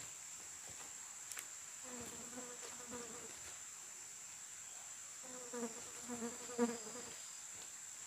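A flying insect such as a fly or bee buzzing close past the microphone twice, about two seconds in and again from about five seconds, the second pass louder. Under it runs a steady high-pitched insect drone of crickets or cicadas.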